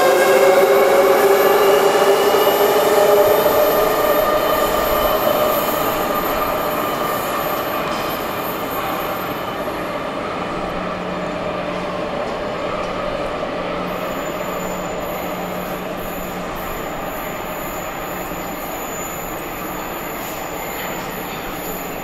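Soviet-built metro train pulling out of the station. Its traction motors whine in a stack of tones that rise in pitch as it accelerates away, fading over about ten seconds into a steady station hum.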